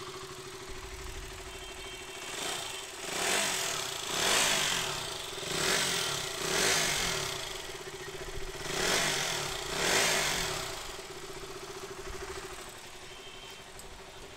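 KTM Duke 200's single-cylinder four-stroke engine idling, revved in a series of about seven short throttle blips, each rising and falling back, before settling to a steady idle near the end. The engine has just been rebuilt with its valve shims set, and it runs smoothly with a good sound.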